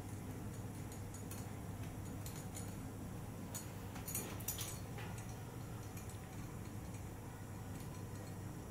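Faint metallic clicks and clinks of a small screw and a thin metal base plate being handled as the screw is turned by hand, with a quick cluster of clicks about four to five seconds in.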